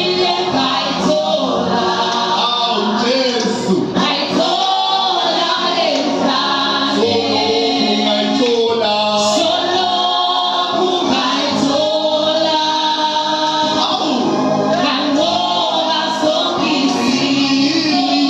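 A choir singing gospel music with accompaniment.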